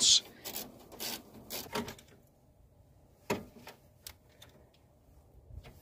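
Scattered clicks and light knocks of a ratchet and socket on the electric cooling fan's 8 mm mounting bolts, about a dozen in all, at irregular intervals.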